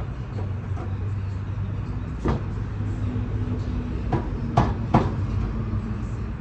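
Four sharp knocks over a steady low hum, the last three coming close together.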